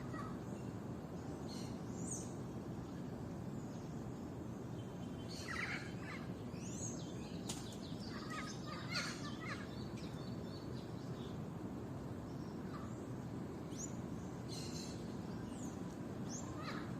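Songbirds chirping and twittering in scattered short bursts, over a steady low rumble of background noise.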